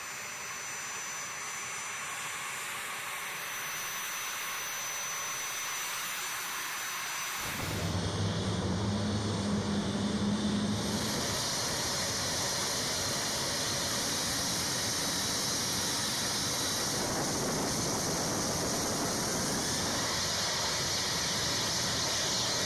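A-10 Thunderbolt II's turbofan jet engines running on the flight line: a steady high-pitched whine and rushing noise that becomes fuller and louder about eight seconds in.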